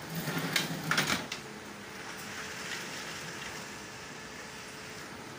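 Heavy typhoon rain falling outside, a steady rushing hiss. A brief burst of louder, sudden noise comes in the first second and a half, then the rain sound goes on alone.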